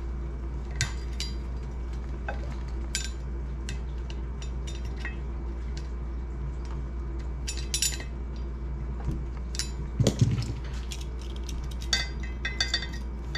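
Screwdriver tip and steel safety wire clicking and scraping against a cap bolt head on a steel brake drum: scattered light metallic clinks over a steady low hum, with a duller knock about ten seconds in and a quick cluster of clinks near the end.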